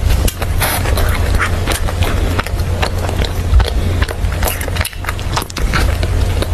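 Close-miked mouth sounds of biting and chewing a soft pork floss bun with a creamy filling: a continuous run of small clicks and smacks, over a steady low hum.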